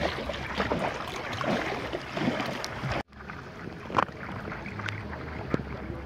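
Water lapping and splashing around a stand-up paddleboard being paddled on calm sea. About halfway through the sound drops out for an instant and comes back quieter, with a few small sharp splashes of the paddle.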